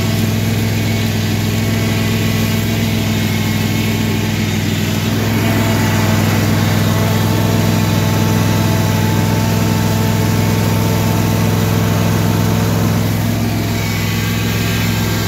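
Simplicity Broadmoor garden tractor's engine running steadily as it pulls a trailer loaded with firewood, a little louder for several seconds in the middle.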